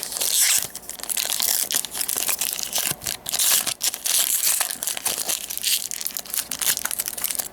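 Plastic booster pack wrapper crinkling and crackling in the hands, with trading cards being handled.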